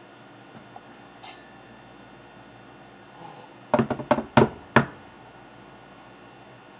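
A quick run of about six sharp knocks or slaps, within about a second, about four seconds in: hands hitting the desk by the laptop in excitement.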